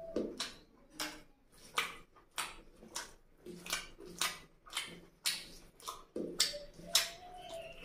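Close-up wet chewing of rice and mutton curry with lip smacks, about two smacks a second.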